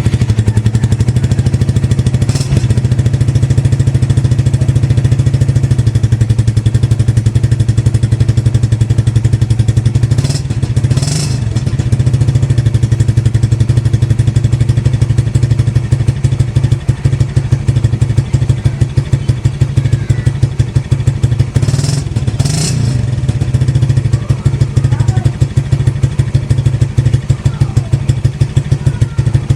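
Suzuki Raider 150 Fi motorcycle's single-cylinder four-stroke engine idling through its exhaust canister with a steady pulsing note. The throttle is blipped twice about a third of the way in and twice again about two-thirds of the way in.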